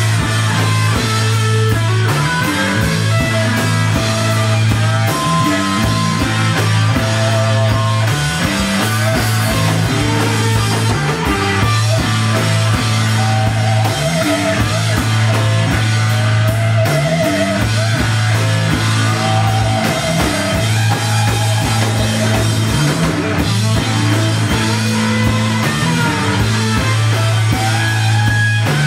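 Rock band playing loudly live, with guitar and drums over a heavy, sustained low bass note.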